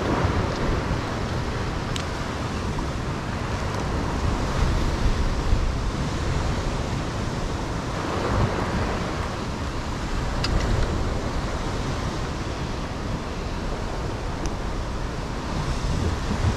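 Ocean swell surging and washing against the foot of a sea cliff, a steady rush of surf with wind buffeting the microphone. A few faint clicks sound here and there.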